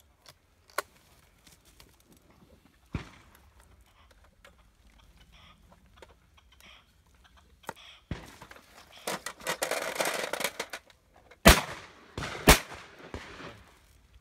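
Shotgun fired twice, about a second apart, near the end: two loud sharp reports, each ringing off briefly. A few fainter sharp cracks come earlier, and a rough rustling noise comes just before the shots.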